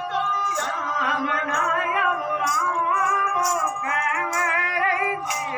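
Music with a singing voice that holds long wavering notes, bending in pitch, over steady held accompanying tones.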